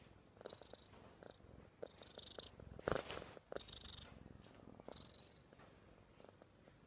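Tabby cat purring softly right at the microphone, with a brief rustling scrape about three seconds in as its fur brushes against the phone.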